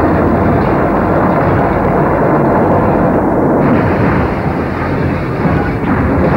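A stunt car explosion and its fire: a loud, dense rumbling that runs on without a break.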